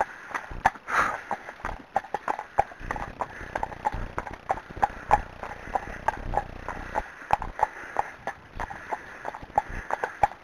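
Hooves of a Friesian horse and a second horse clip-clopping on a tarmac lane in a quick, dense run of strikes, with a low rumble for a few seconds in the middle.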